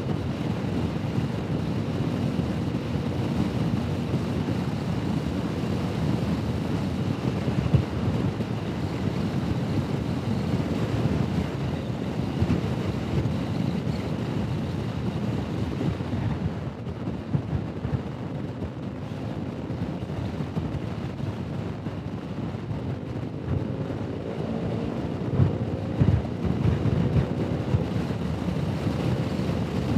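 Honda Forza 125 scooter's single-cylinder engine running under way, mixed with heavy wind rush on the microphone. The rush eases for several seconds past the middle, then the engine note climbs again near the end as the scooter speeds up.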